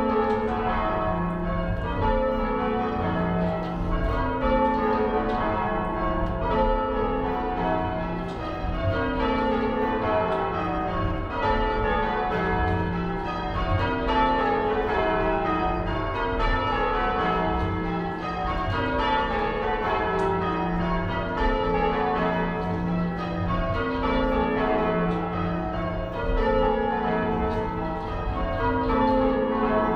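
A ring of church bells rung full circle by hand from the ropes in change ringing, strike after strike in steady rows that run down the scale from the lightest bell to the heaviest.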